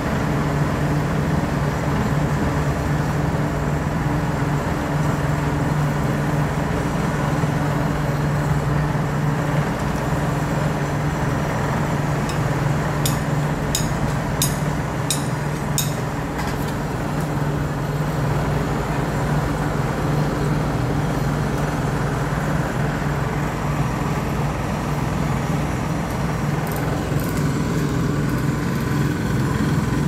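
The engine of a heavy road-paving machine runs steadily at a constant low hum. About halfway through, five sharp clicks come evenly spaced, and a few fainter ones follow near the end.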